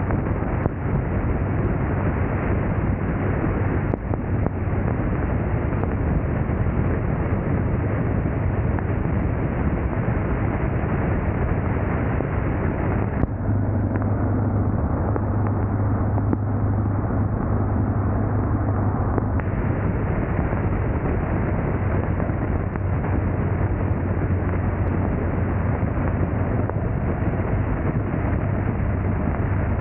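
Motorcycle engine running steadily at riding speed, with wind rushing over the microphone. For about six seconds midway the rushing hiss thins and the low engine note comes through stronger.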